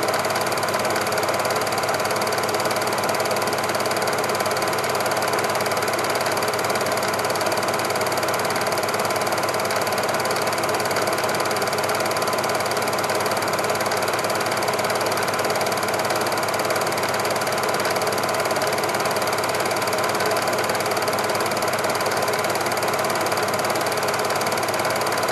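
Super 8 film projector running, a steady, unchanging mechanical whirr.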